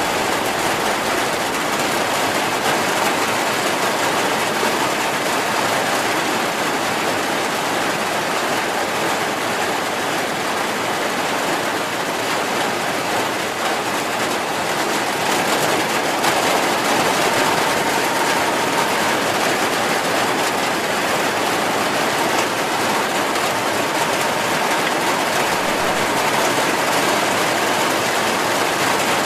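Heavy rain falling steadily, an even hiss without breaks or single strikes.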